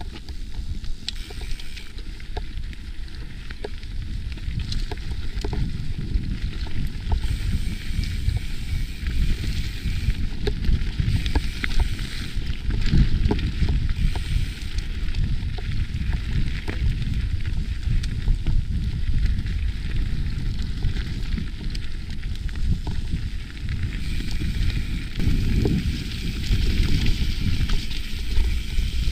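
Mountain bike riding down a dirt singletrack: knobby tyres rolling over dirt with a steady low rumble, and many small clicks and knocks as the bike rattles over roots and rocks.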